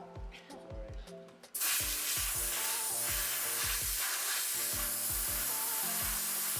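Welding arc on thin car-body sheet metal: a steady, loud crackling sizzle that starts abruptly about a second and a half in and runs for about five seconds before cutting off suddenly. Background music with a steady beat plays throughout.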